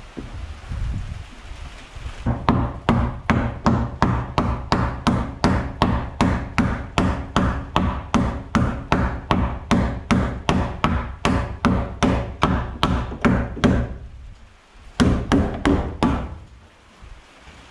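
Hammer striking wood in a fast, even run of about three blows a second for some twelve seconds, then a short pause and a quick handful more.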